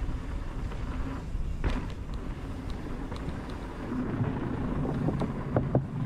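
Mountain bike riding fast down a dirt singletrack: a steady rumble of tyres on the trail, with sharp rattling clacks from the bike over bumps, once about a second and a half in and in a quick cluster near the end.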